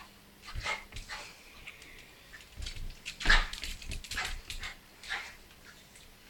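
A dog making a string of short, bark-like sounds while tugging on a toy in a tug-of-war game. The loudest comes a little past halfway.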